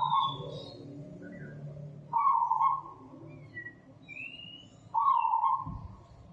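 A puppy whining: three high cries, each under a second long and two to three seconds apart, with fainter high squeaks between them.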